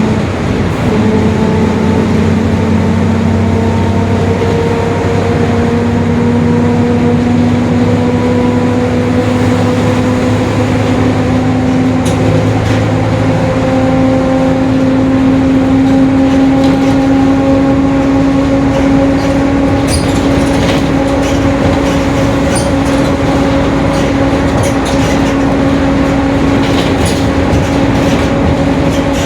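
Mercedes-Benz OF-1721 Bluetec 5 bus under way, its differential droning in a steady whine that climbs slowly in pitch as road speed builds, over the diesel engine running. The whine is the sign of a noisy rear differential.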